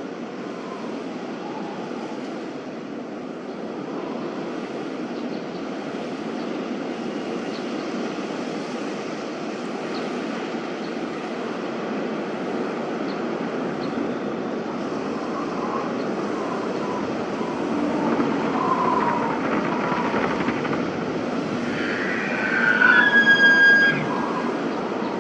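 Outdoor winter ambience: a steady rushing noise that slowly grows louder, with a few faint short tones in the second half and a brief, louder high-pitched squeal near the end.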